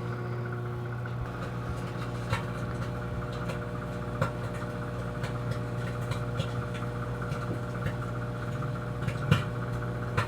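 Microwave oven running with a steady electrical hum while it heats a slice of bacon in a microwave bacon tray, with a few faint clicks now and then.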